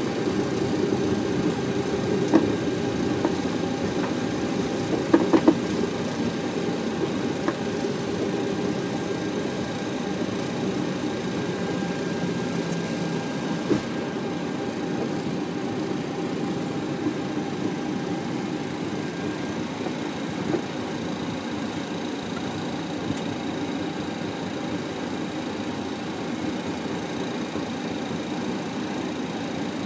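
Flight-deck noise of a Boeing 737-800 rolling out and taxiing after landing: a steady rumble of its CFM56 engines at idle and the airflow, slowly growing quieter. A few short, sharp clicks come through in the first two-thirds, the loudest about five seconds in.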